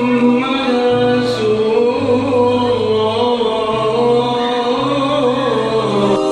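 Background vocal music: a voice singing a slow, ornamented, chant-like melody over low sustained notes that shift about once a second.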